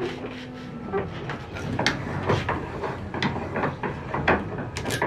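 Irregular metallic clicks and clanks from a hand-operated coil-bending jig as the metal tube of an immersion water-heater element is wound around its mandrel and the lever bar is worked. They start about a second in and come faster and louder near the end.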